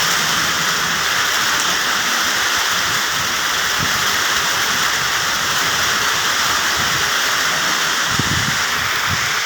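Steady rain falling on plant leaves: a dense, even hiss of many drops, with a few low thumps near the end.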